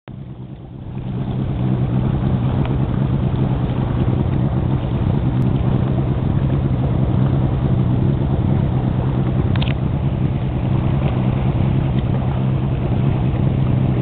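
Bass boat's outboard engine running steadily under way, with the rush of water and wind along the hull; it grows louder about a second in and then holds steady.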